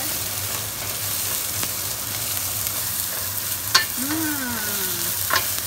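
Ginger, garlic, onion and dried chilies sizzling in hot oil in a stainless steel pan while being stirred with a wooden spatula, which knocks against the pan twice in the second half.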